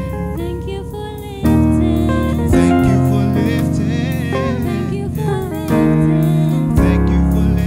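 A man singing a slow gospel worship song over sustained electronic keyboard chords. The chords change about one and a half seconds in and again near six seconds.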